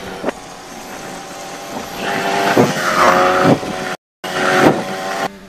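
Onboard sound of a Formula 1 car's turbocharged V6 hybrid engine at racing speed, its note rising and dropping several times as it changes gear. The sound cuts out completely for a moment about four seconds in.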